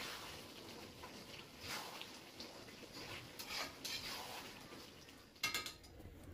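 Faint kitchen handling sounds: soft scuffs and brushing noises, with a short clatter of sharp clicks about five and a half seconds in.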